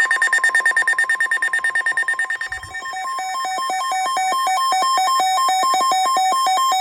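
Electronic emergency alert tones. For the first two and a half seconds or so a fast, rapidly pulsing beep, then a pattern of two electronic tones, one lower and one higher, switching back and forth irregularly.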